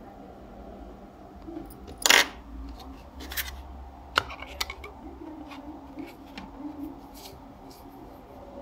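A compact disc being handled and set on the CD player's spindle: a few sharp plastic clicks and knocks, the loudest about two seconds in, followed by lighter ticks and rubbing.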